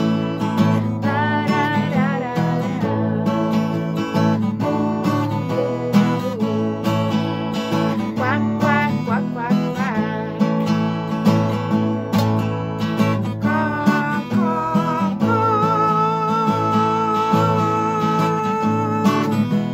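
Strummed acoustic guitar with a singing voice: a cheerful children's song, ending on a long held note.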